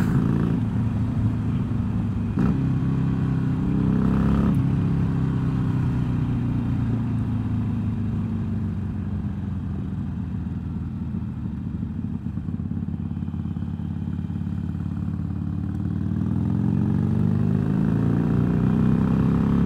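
Motorcycle engine running on the road. Its note sinks slowly over several seconds, then climbs again near the end as the bike picks up speed.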